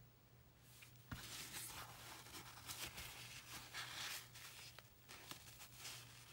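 Faint rustling and crinkling of a paper towel being wrapped around a freshly inked fountain pen's nib to dab off excess ink, starting about a second in, over a steady low hum.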